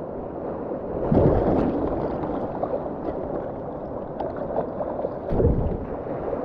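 Whitewater river rushing steadily, with two louder surges of splashing water, one about a second in and another near five seconds.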